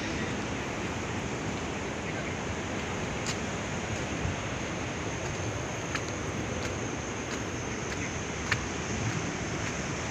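Steady rushing noise of sea surf breaking below, mixed with wind, with a few faint clicks.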